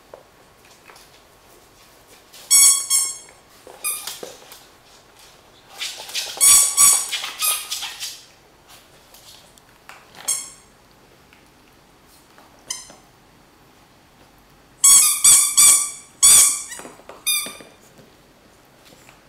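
A dog chewing a rubber squeaky toy, setting off bouts of high-pitched squeaks at irregular intervals, some single and short, some in quick clusters of several squeaks.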